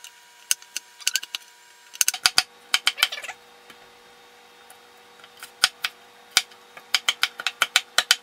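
Chef's knife chopping a green pepper on a wooden cutting board: quick runs of sharp knocks as the blade strikes the board, broken by a pause of about two seconds midway.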